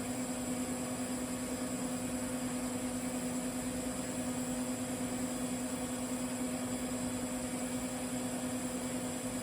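TIG welding arc burning steadily on carbon steel pipe, a constant hum with an even hiss over it.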